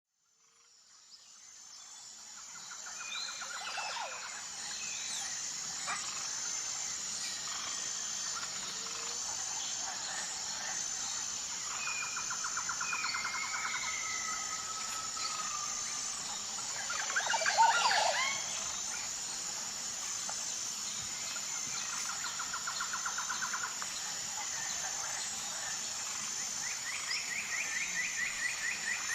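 Nature soundscape fading in: a steady high insect drone with birds calling over it, short trills recurring every several seconds and gliding whistles. The loudest moment is a quick cluster of chirps about 18 seconds in.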